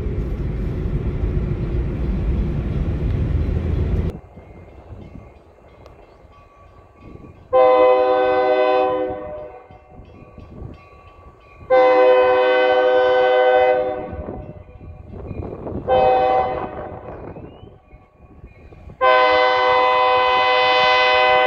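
Freight locomotive horn, on an EMD SD40, sounding the grade-crossing signal: two long blasts, a short one, then a final long one, each several notes at once. Before the horn, a loud steady rumble cuts off abruptly about four seconds in.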